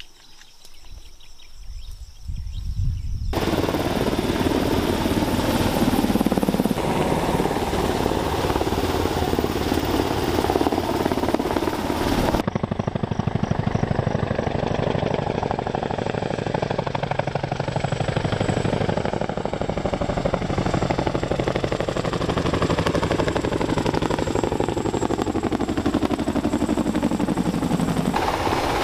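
Helicopter running close by, its rotor giving a fast, even chop, with the pitch slowly falling and rising. It comes in loudly about three seconds in after a quieter start and changes abruptly in tone a few times.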